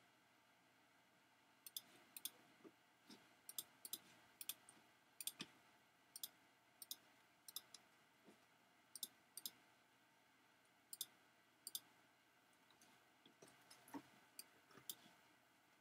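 Quiet computer mouse clicks, single and in quick pairs, coming irregularly about once or twice a second, with a short pause a little after the middle.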